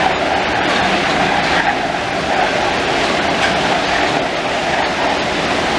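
Driverless MP 05 rubber-tyred metro train running past the platform close by: a loud, steady rush of tyres and traction motors with a hum in the middle range.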